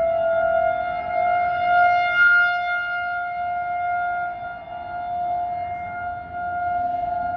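A loud, steady alarm tone held at one pitch with a stack of overtones, sounding like a warning siren. Its tone shifts slightly about two seconds in.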